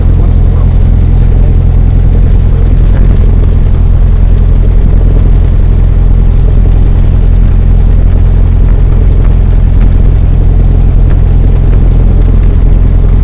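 Cessna 172's piston engine and propeller running steadily, heard loud inside the cabin.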